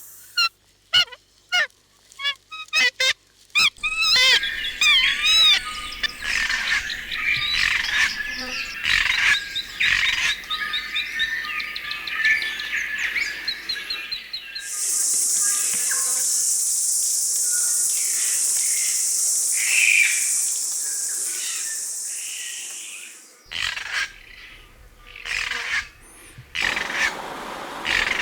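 Wild New Zealand forest birds calling and singing: a few separate sharp calls, then a dense chorus of warbling, gliding song. Partway through, a steady high hiss holds for about eight seconds, then scattered calls return.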